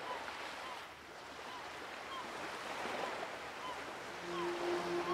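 Sea waves washing, an even wash of water noise, with short high chirps now and then. About four seconds in, steady sustained music tones fade in.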